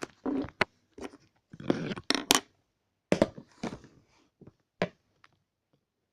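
Candle wax being scraped and crumbled off a candle with scissors: irregular crunchy scrapes with a few sharp clicks, dying away about five seconds in.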